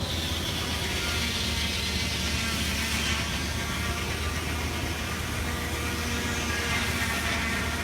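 Steady running of steam-powered sawmill machinery: a constant low hum with a hiss over it, unbroken throughout.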